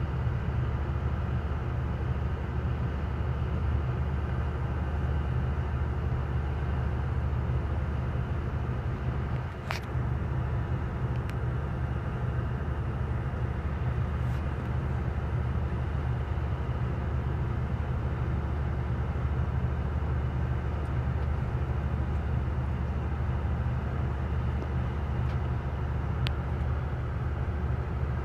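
Steady low diesel engine drone of a ferry under way, with a single sharp click about ten seconds in.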